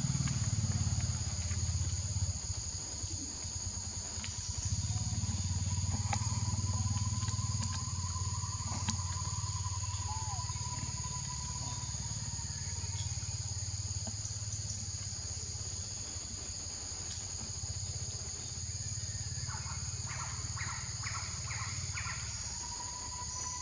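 Insects droning steadily at two high pitches, over a low steady rumble. Near the end there is a quick run of about five short chirps.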